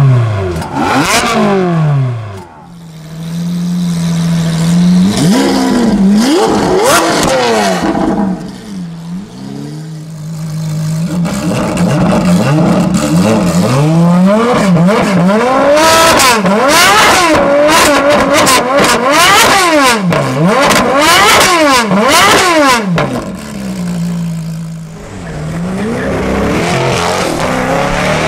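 Stationary Ferrari supercar engines being revved, a 360 Challenge Stradale's V8 and then an FXX's V12: spells of steady idle broken by many quick rev blips that rise sharply and fall straight back.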